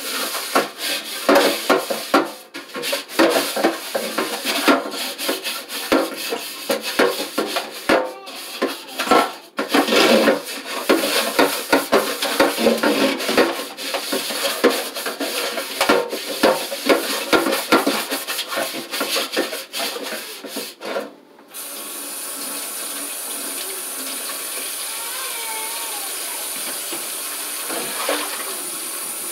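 Water splashing at a kitchen sink, with frequent irregular knocks and clatters of things being handled in it. About 21 seconds in it changes suddenly to a steady rush of running tap water.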